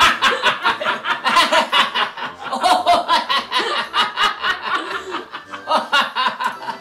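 A small group of men and a woman laughing together, several voices overlapping in quick, repeated chuckles.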